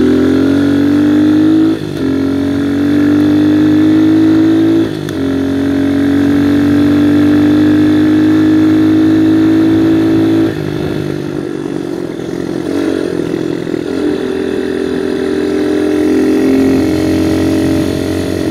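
Viper 150cc dirt bike engine pulling hard, its note climbing in pitch with two brief dips as it shifts up, about two and five seconds in. After about ten seconds the throttle eases off and the engine runs quieter and less steadily at a cruising speed.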